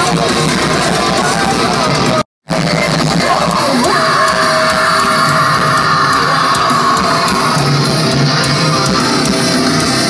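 A live rock band playing loud through a festival PA, with electric guitar prominent, heard from within the crowd on a phone's microphone. The sound cuts out completely for a moment about two seconds in, where one clip ends and another begins.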